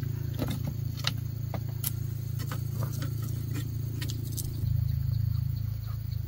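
A motor running with a steady low hum, and light clicks and taps over it. About four and a half seconds in, the hum changes and its higher part drops away.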